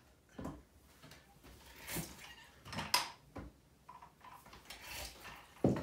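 A few scattered knocks and clunks of bar tools and a lemon being handled and juiced at the counter, the sharpest one near the end.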